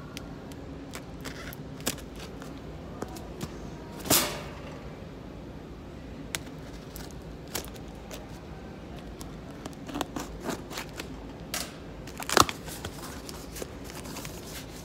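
Packing tape being ripped off a cardboard case and the box handled, with scattered clicks and knocks; the loudest rip comes about four seconds in and a sharp knock a couple of seconds before the end.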